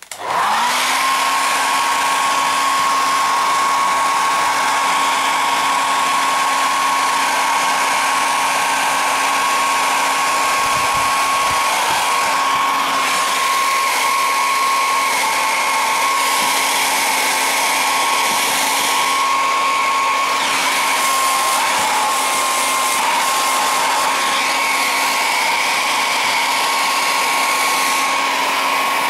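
Handheld hair dryer switching on and running steadily at one speed, a constant hum with a higher whine over a rush of air, blowing onto the metal back of an LCD panel.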